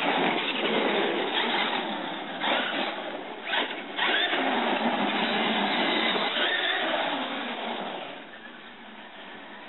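Traxxas E-MAXX RC monster truck with a Feigao 7XL brushless motor on a 3S LiPo, its electric motor and gear drive whining with the throttle as it drives on asphalt, with a few brief dips. About eight seconds in it turns quieter as the truck gets further away.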